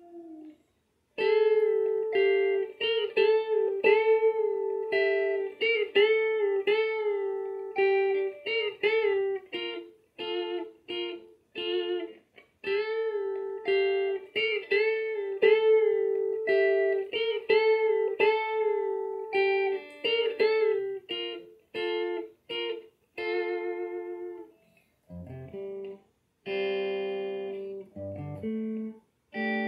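Solo electric guitar played clean through an amp with no effects, picked up by a phone's microphone: a slow melodic line of picked single notes, many bent and held with vibrato, dropping to lower notes near the end.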